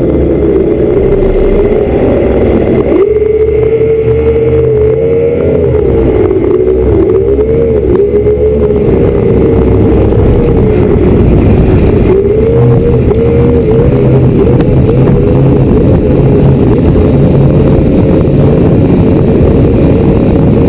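Offshore race boat's engines running at racing speed, loud and close. Their pitch repeatedly dips and rises for much of the time and settles steadier near the end.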